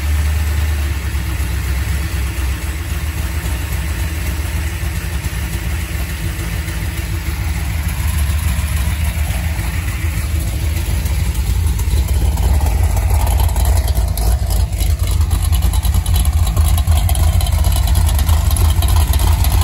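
Carbureted V8 engine running steadily on an engine run stand, its exhaust going through headers into a pair of open-ended mufflers; the sound grows louder in the second half.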